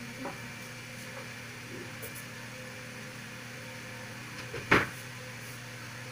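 Kitchen wall-cabinet door pushed shut, closing with a single sharp bang about three-quarters of the way through, after a couple of faint knocks. A steady low hum runs underneath.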